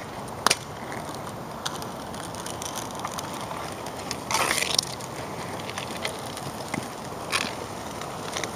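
Street hockey play on asphalt: a sharp knock of stick or ball about half a second in, a scrape lasting about half a second around the middle, and another short knock near the end, over steady outdoor noise.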